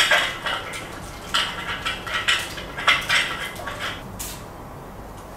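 Hard parts being handled and put down: a run of clattering knocks and scrapes for about four seconds, then it settles.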